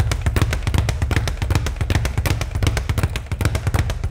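Speed bag being punched in a fast, steady rhythm, rattling rapidly against its rebound platform.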